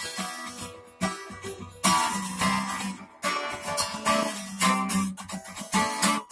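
Acoustic guitar being strummed, chords struck about once a second and left to ring between strokes.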